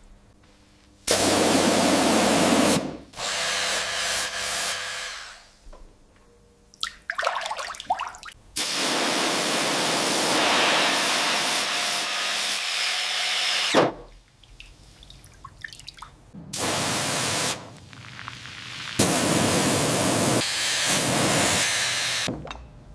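Water spray hissing onto a rusted padlock in repeated bursts of one to five seconds, each starting and stopping abruptly, with quieter sounds in the pauses.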